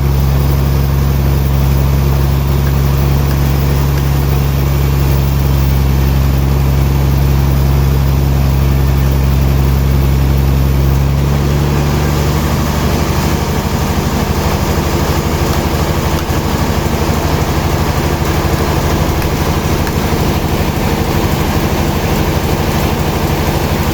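Heavy sawmill machinery running with a steady low hum, its tone changing about halfway through.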